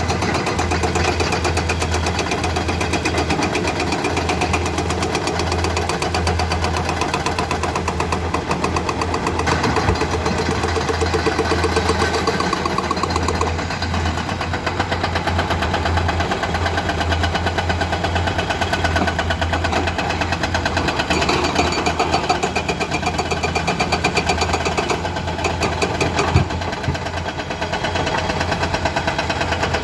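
Diesel engine of heavy earthmoving machinery running steadily under work, with a rapid, even knocking pulse and a strong low hum.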